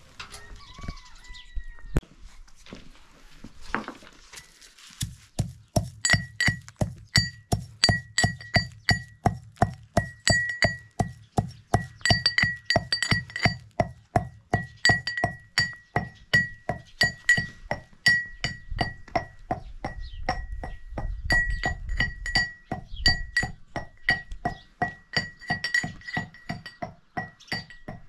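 Steady series of sharp ringing strikes, about two or three a second, starting about five seconds in, each with the same bright ring.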